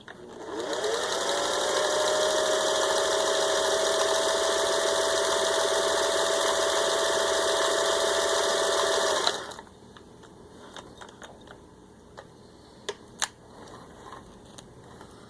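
Singer 401A sewing machine running a zigzag stitch: its motor spins up with a rising whine, runs steadily for about eight seconds, then stops suddenly. A few light clicks follow near the end.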